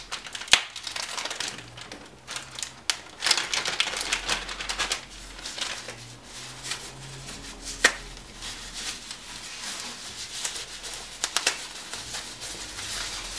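Hands handling a brushless motor in its plastic packaging: crinkling plastic with many irregular small clicks and taps.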